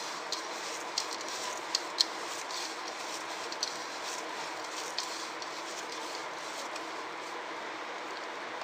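Fingers mixing a moist spice marinade in a ceramic bowl: soft squishing with a scatter of light clicks against the bowl during the first five seconds, over a steady hiss.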